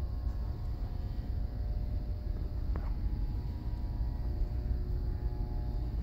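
Steady low rumble and faint hum of industrial machinery in a plant, with a single light click about three seconds in.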